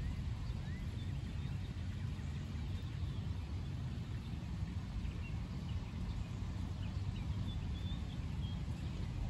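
Scattered short bird chirps over a steady low rumble.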